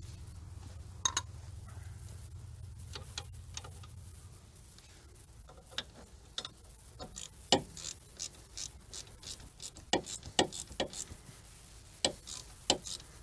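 Scattered sharp metallic clicks and clinks of a hand ratchet wrench being worked on the hub bearing bolts, coming thicker in the second half. A low hum fades out after the first few seconds.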